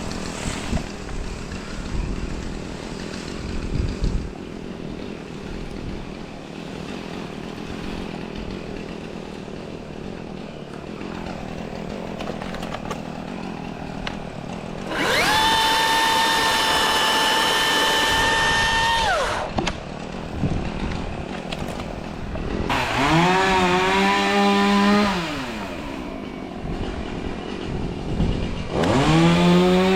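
Milwaukee battery-powered top-handle chainsaw. It revs at full speed for about four seconds with a steady high whine, then runs twice more near the end at a lower pitch that dips and wavers as it cuts into the wood.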